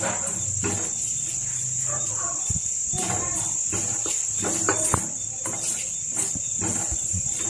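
Spoon stirring and scraping spices and crisp curry leaves around in hot oil in a kadhai, with scattered knocks and scrapes. A steady high-pitched tone runs underneath.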